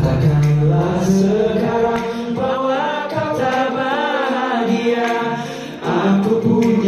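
A man singing a slow pop song live into a handheld microphone, with music behind him.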